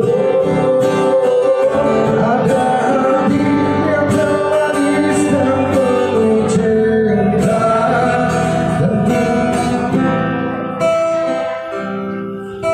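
A man sings into a handheld microphone to a strummed acoustic guitar. About ten seconds in, the voice stops and the guitar plays on alone.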